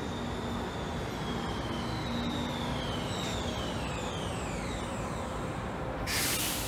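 Amsterdam metro train arriving at a platform as it slows: steady running noise with high brake squeals that glide down in pitch. A short, loud hiss comes near the end.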